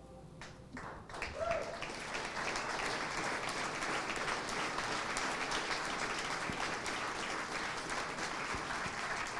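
Audience applauding steadily, the clapping building up about a second in as the last note of music fades out.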